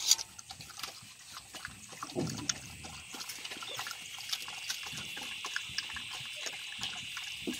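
A dog lapping meat juice from a metal bowl: a quick, continuous run of wet licks and laps.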